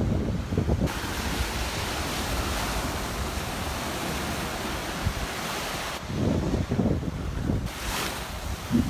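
Waves washing onto the beach as a steady hiss, with wind buffeting the microphone in low rumbling gusts at the start and again over the last few seconds.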